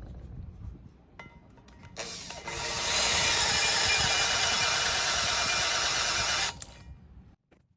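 Power-driven valve-stem-seal cutter machining the top of a new intake valve guide in a cylinder head, cutting the seal seat and shortening the guide. The metal cutting starts about two seconds in as a loud whirring grind with a steady ringing tone, holds for about four seconds and stops abruptly, over the low hum of the machine.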